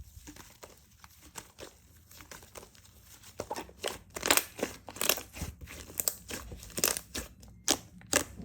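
Slime being squeezed and stretched by hand, giving off irregular sticky pops and crackles that grow denser and louder about three and a half seconds in.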